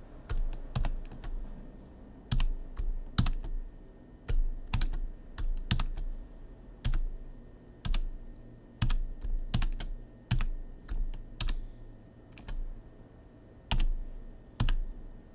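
Computer keyboard keystrokes as a long password is typed in slowly, one key at a time: separate sharp clicks at uneven intervals, about two a second, with short pauses between runs.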